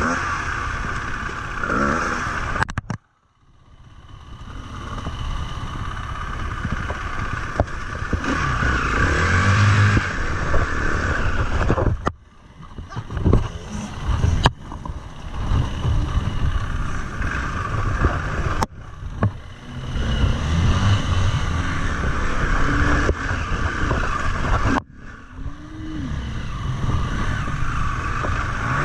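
Single-cylinder four-stroke engine of a KTM 350 EXC-F Six Days enduro bike revving up and down under throttle as it climbs a rocky track. The sound breaks off suddenly several times.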